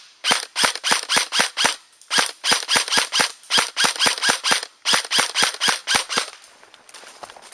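Airsoft gun firing a rapid string of single shots, about three a second, in four runs with short pauses between them; each shot is a sharp crack.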